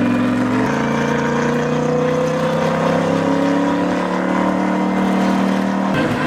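Bentley Continental GT3 race car's twin-turbo V8 running hard on track, its note climbing slowly as it accelerates. The note changes suddenly about a second in, and breaks off briefly near the end.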